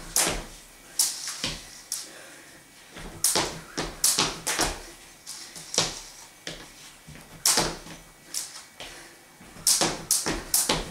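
Skipping rope slapping the floor at about two strikes a second, together with the thud of landing feet. The rhythm stops about a second and a half in, leaving only a few scattered taps, and the steady slapping starts again about seven and a half seconds in.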